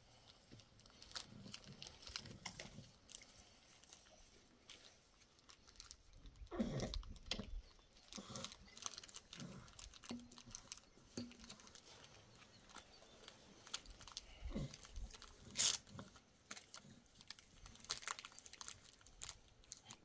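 Faint, intermittent clicks, rustles and crunching from hands fitting small shoes onto a baby's feet, louder for a moment about seven seconds in and again past the middle.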